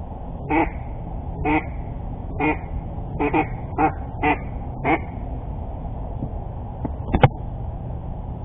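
A series of about eight short duck quacks, evenly spaced over the first five seconds, followed near the end by a single sharp crack.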